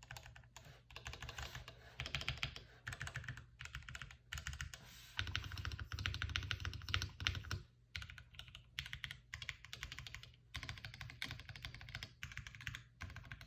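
Typing on a 65% mechanical keyboard with stock Gateron Kangaroo Ink V2 switches, an aluminum plate and an O-ring mount. The keystrokes come in runs of a second or two with short pauses between, and there is a longer, faster flurry about five seconds in.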